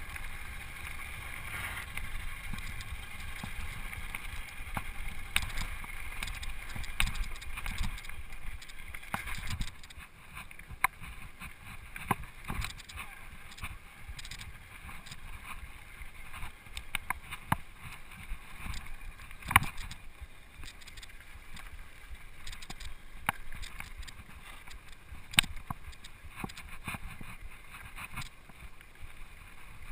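Rocky Mountain Flatline downhill mountain bike rolling fast down a gravel road: a low rumble of tyres on loose gravel and wind on the camera microphone, with frequent sharp clicks and knocks as the bike rattles over stones. The rumble eases a little about ten seconds in.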